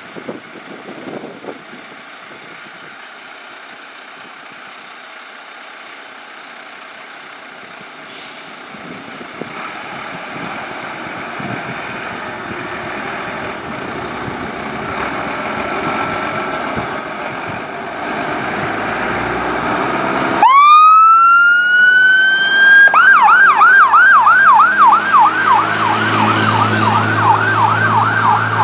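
Fire truck engines running and growing steadily louder as the trucks pull out. About twenty seconds in, a fire engine's siren winds up in a rising wail, then switches to a fast yelp of about three cycles a second.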